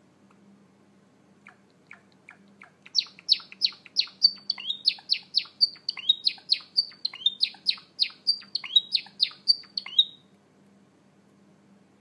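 Java sparrow singing: a few soft clicking notes build into a fast run of high, downward-sweeping chirps, about three or four a second, which stops suddenly about ten seconds in.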